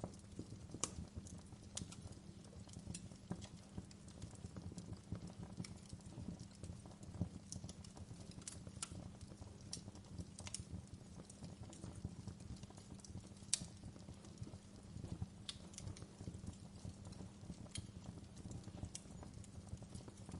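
Wood fire crackling in a fireplace: a steady soft crackle with scattered sharp pops, a few louder ones standing out.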